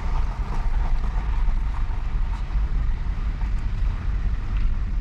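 Low, steady rumble of a car driving slowly, heard from inside the cabin, with a few faint ticks from the tyres on the unpaved ground.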